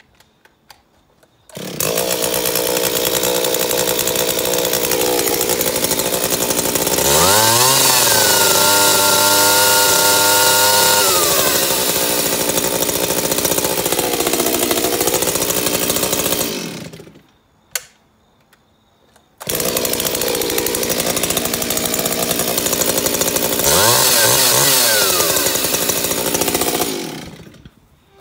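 Stihl 036 61cc two-stroke chainsaw starting and idling, then revved to full throttle for about four seconds and dropping back to idle before it stops. It runs again, revs up once more and stops near the end. This is a test run on freshly set carburettor low- and high-speed screws after a basic service.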